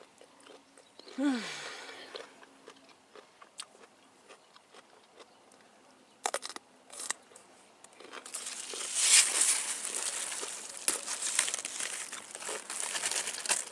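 Large, rough cucumber leaves rustling and crackling as a hand pushes in among the vines, starting about two-thirds of the way in. Before that, mostly quiet with a few faint clicks.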